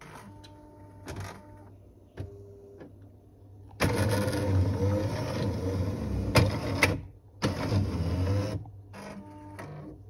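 Jura E8 coffee machine's grinder running in two spells, about three seconds and then about a second, with shorter motor whirs from the machine before and after. The owner's complaint is that the beans jam in the hopper, so the grind and the shot get cut short.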